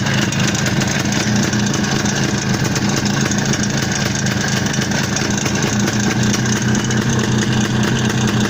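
IZh Planeta 5's single-cylinder two-stroke engine idling steadily with a knock in it. The knock persists after the crankshaft, its bearings, and the crank pin and bushing were replaced, so its cause is unknown to the owner.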